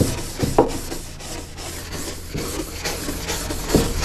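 Felt board duster rubbing across a whiteboard in repeated wiping strokes as the writing is erased, with two louder bumps, about half a second in and near the end.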